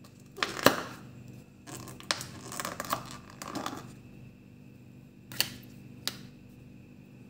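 Handling noises: two sharp knocks about half a second in, then about two seconds of scratchy noise, then two more sharp clicks about a second apart.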